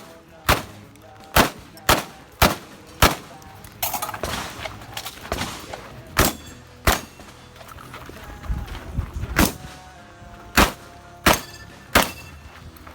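Semi-automatic 12-gauge shotgun (Derya MK-12) firing a string of about a dozen sharp shots in quick groups. About five come close together at the start, then a stretch of scuffing noise, two more, a gap, and a final run of evenly spaced shots near the end.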